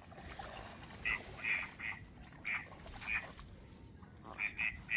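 Ducks quacking: a run of short quacks, about five spread over a couple of seconds, then a quicker group of three near the end.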